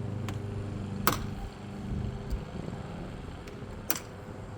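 Sharp clicks and knocks of frame tubes and panels being handled and fitted during assembly, the loudest about a second in and another near the end. Under them a steady low hum stops about a second in.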